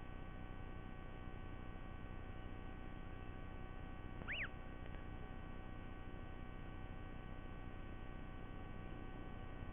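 Steady electrical hum from the nest-camera microphone, with a single short high-pitched bird chirp that rises and falls in pitch about four seconds in.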